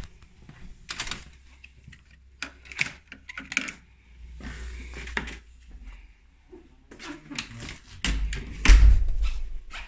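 Hotel room door being unlocked with a keycard and pushed open: a string of clicks and clunks from the lock and lever handle, with a louder, deeper thump a little before the end.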